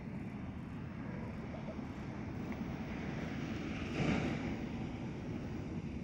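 Steady low rumble of an idling watercraft engine mixed with wind on the microphone, with a brief louder rush of noise about four seconds in.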